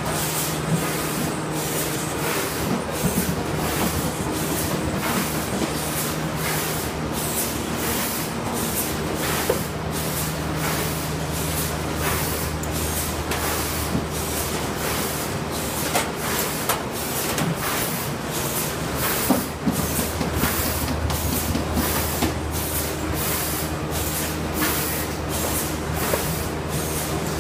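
Lemon bagging and case-packing line running: a steady low hum of conveyor motors under frequent short sharp hisses and clicks from the machinery.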